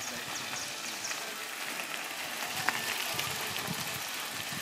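Mountain bikes rolling past on a gravel and dirt path, tyres crunching, with one sharp click about two and a half seconds in.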